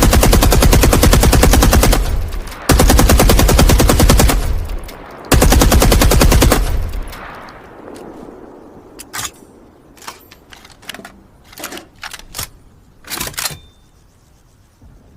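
DShK 12.7 mm heavy machine gun firing three long, rapid bursts, with echoing reverberation after the last. A few quieter short, sharp clicks follow.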